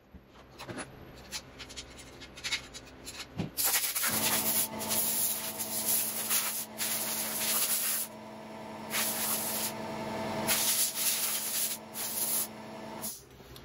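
Compressed air blowing debris off a log splitter: several hissing blasts, each a second or two long, begin about four seconds in after a few quieter puffs. A steady hum starts with the first blast and stops shortly before the end.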